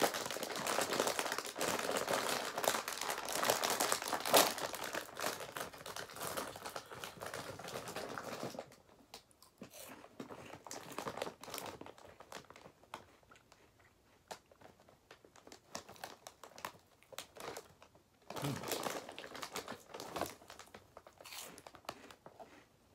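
A plastic cheese-curl snack bag crinkling as it is handled and opened, dense for the first eight seconds or so. Then it goes quieter, with a few light crunches, until a second stretch of bag crinkling about eighteen seconds in.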